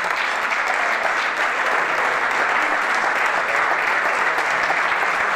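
A roomful of people clapping, a dense steady applause that holds at the same level throughout.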